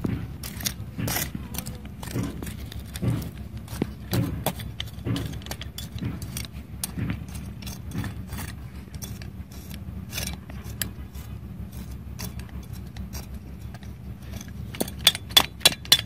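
Small metal hand trowel scraping and pushing loose, stony soil, with irregular gritty scrapes and clicks of pebbles. The clicks come sharper and louder near the end.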